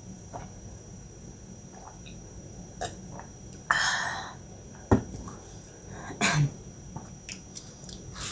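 A glass of apple juice handled and set down on a wooden board, with a sharp knock of glass on wood about five seconds in. A short, loud, breathy rush of noise comes just before the knock, and a duller thump follows a second later.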